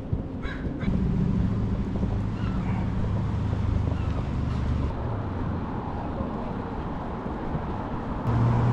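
Outdoor street noise with a motor vehicle's engine humming steadily nearby. The hum fades about five seconds in and returns near the end.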